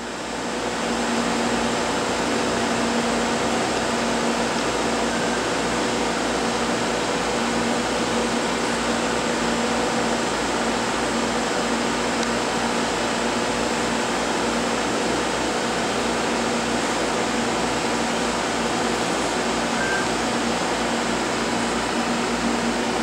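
Steady hum and air noise of running laboratory equipment, with a constant low tone and a faint high whine, fading in over the first second.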